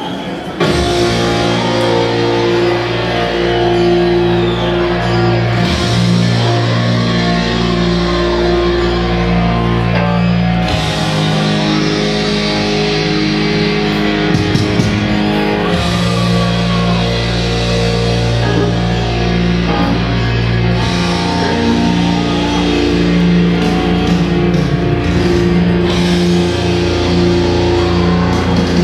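Loud rock music with electric guitar, holding long chords over a steady bass; it cuts in suddenly about half a second in.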